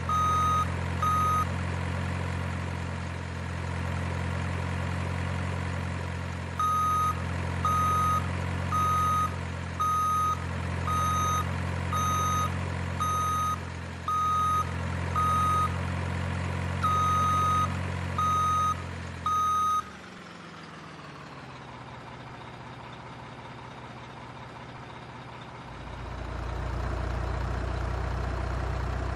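Simulated truck engine running with a reversing beeper sounding about once a second, likely from a remote-control truck's sound module; the beeping pauses for a few seconds near the start. About two-thirds of the way through, the engine sound winds down in pitch and stops, leaving a faint hum. Near the end a low, steady engine-like drone starts up.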